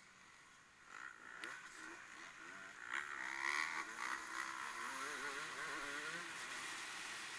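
Racing engine revving up and down, pitch wavering, getting louder from about a second in and easing off slowly near the end.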